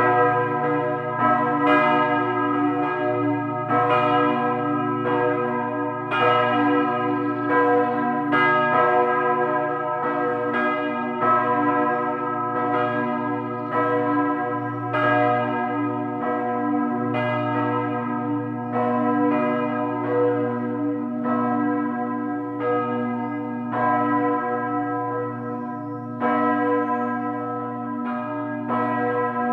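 Several large bronze church bells, cast by Ruetschi of Aarau in 1927, swinging and ringing together in a peal. Their strokes follow one another about every half second to a second, each ringing on under the next, over a steady deep hum.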